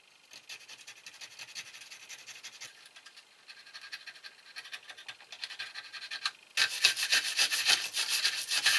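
Rapid back-and-forth scraping of metal as brake parts are cleaned of rust and dirt with a hand tool: light strokes at first, then much louder, faster scrubbing from about six and a half seconds in.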